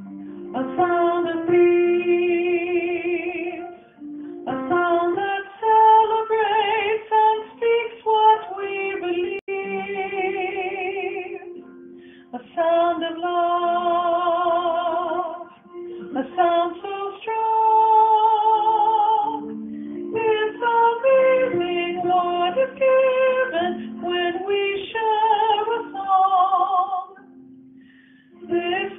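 A woman singing a choral part in phrases, her held notes wavering with vibrato, over a soft instrumental accompaniment, with short breaks between the phrases.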